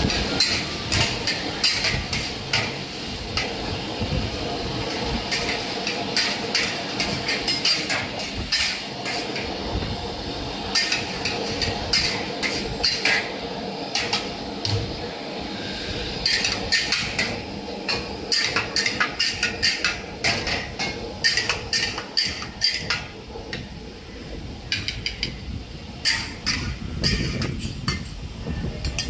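Metal spatula clanking and scraping against a wok in quick, irregular strikes during stir-frying, over the steady roar of a high-flame gas wok burner.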